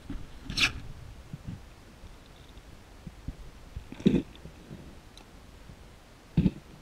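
Underwater handling knocks and clicks from a speargun and camera housing being moved while aiming: three sharp knocks, about half a second in, about four seconds in and near the end, with fainter low taps between, over a dull underwater hiss.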